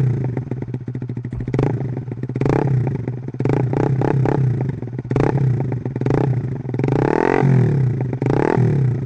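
Yamaha R15's single-cylinder engine running loud through an aftermarket SC Project slip-on muffler, revved in repeated short throttle blips that rise in pitch and fall back to idle.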